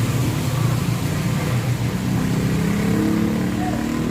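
A motor vehicle engine running with a steady low hum. From about halfway through, a second engine note climbs in pitch, like a vehicle accelerating.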